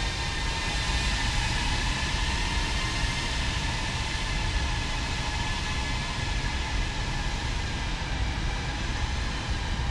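Wind blowing over the microphone: a steady rushing noise with low rumble, with a faint steady high whine above it.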